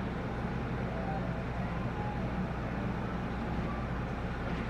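Passenger ferry's engine running steadily under way, a constant low drone with a haze of water and wind noise over it.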